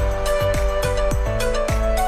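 Music with a steady electronic beat of about four low thumps a second under sustained pitched notes.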